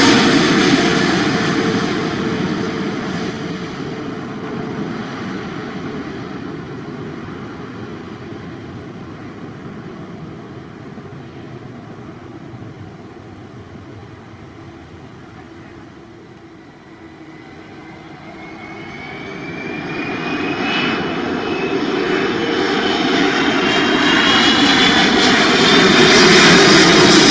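Jet engines of a Boeing 777-300ER on final approach, its GE90 engines loud at first and fading steadily as the airliner passes and lands. About two-thirds of the way through, an approaching Airbus A330-200's engines grow louder, with several whining tones climbing in pitch.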